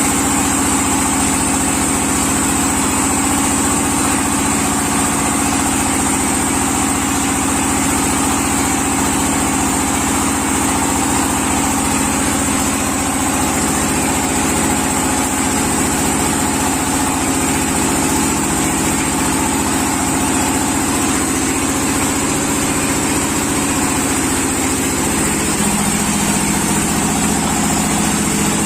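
Brick press machine running steadily with a constant mechanical hum; the hum drops a little in pitch near the end.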